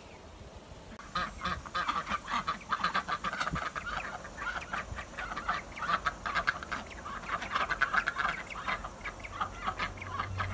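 A small flock of domestic ducks quacking: a rapid, unbroken run of short, overlapping calls that starts about a second in.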